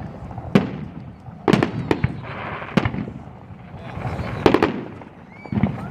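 Aerial fireworks shells bursting: a string of sharp bangs at irregular intervals, about one every second, some in quick pairs.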